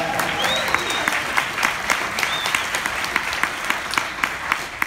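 Audience applauding, with one pair of hands close by clapping about four times a second over the crowd. Two short high cheers rise out of it, near the start and about two seconds in.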